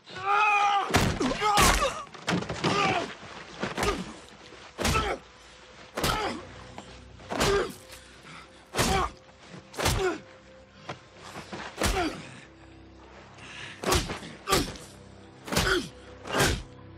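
Fist punches landing one after another with heavy thuds, roughly one a second, a film fight's punch effects, with a yell at the start. A low steady musical tone comes in about halfway.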